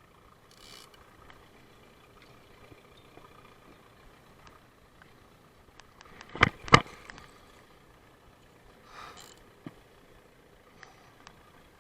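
Two sharp knocks in quick succession about six and a half seconds in, over a faint steady hum, with short breathy hisses near the start and about nine seconds in.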